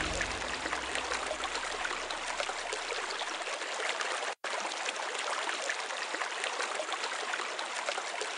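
Steady running water of a flowing stream, with fine trickling crackles, cut off for a split second about four seconds in.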